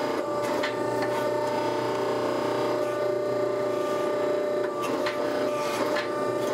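Hydraulic forging press running with a steady hum and whine from its pump and motor as it squeezes a red-hot steel billet. A few sharp cracks come about a second in and again near the end, as scale breaks off the compressed steel.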